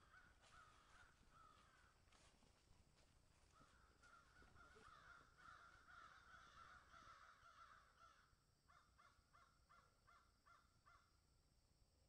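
Faint calling of a forest bird: long drawn-out calls, then from about two-thirds of the way through a quick run of short repeated notes, about three a second.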